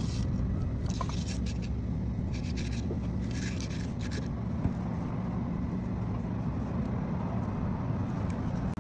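Steady low rumble of motor vehicle noise, with short scraping or rattling sounds about a second in and again around three seconds in.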